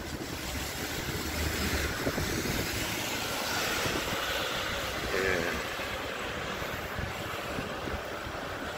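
Steady riding noise of an electric fat bike on the move: an even hiss of tyres and wind, with a low rumble underneath.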